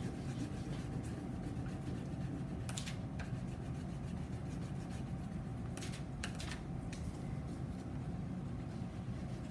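Crayon laid on its side rubbing across paper on a whiteboard, a few brief scratchy scrapes about three and six seconds in, over a steady low room hum.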